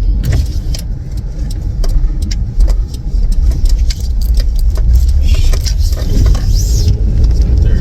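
Inside a moving car: steady low road and engine rumble, with scattered light clicks and rattles and a brief hiss near the end.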